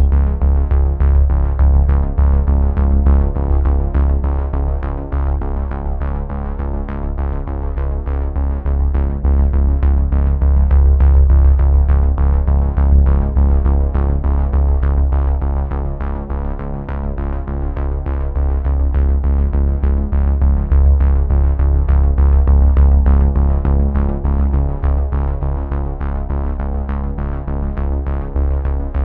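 Background music with a steady beat over a deep sustained bass.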